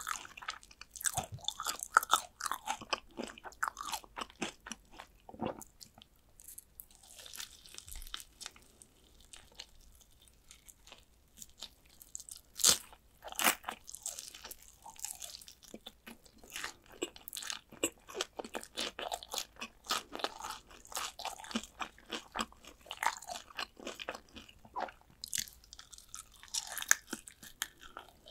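Close-miked biting and chewing of crispy fried chicken drumsticks: sharp crunches of the fried coating with softer chewing between bites. A quieter patch of chewing a few seconds in, then the loudest crunches about halfway through.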